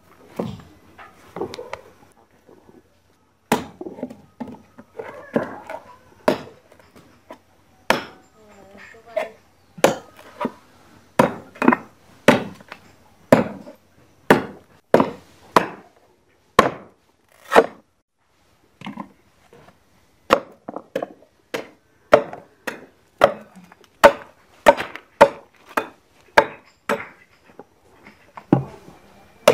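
Curved machete chopping into a coconut palm frond stalk resting on a log: repeated sharp hacks at an uneven pace, about one or two a second, with a couple of short pauses.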